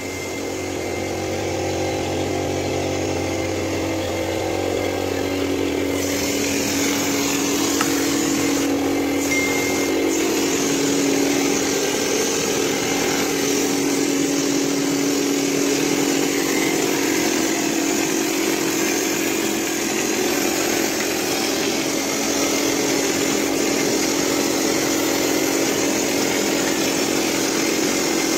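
A compressor-fed plaster hopper spray gun running, with a steady machine hum throughout and a stronger air hiss joining about six seconds in as texture plaster is sprayed onto the wall.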